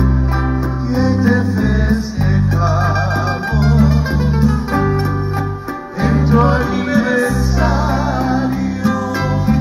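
A trio playing a ballad on two acoustic guitars and an electric bass, with singing in places; the bass walks through steady low notes under the plucked guitar lines.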